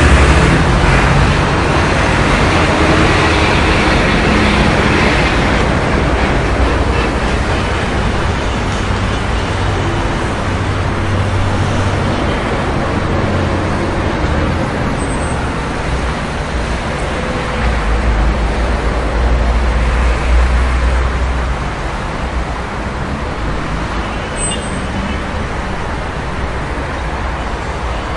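City street traffic: a steady wash of engines and tyres, with heavier vehicles such as buses rumbling past now and then.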